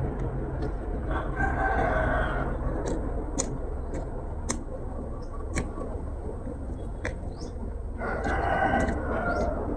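A rooster crowing twice, each crow about a second and a half long: once about a second in and again near the end. A few sharp clicks are scattered between the crows.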